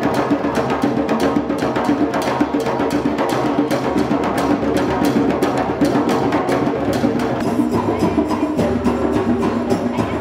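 Drum circle: djembes played by hand in a fast, steady groove, with stick strokes on a pair of small metal-shelled drums.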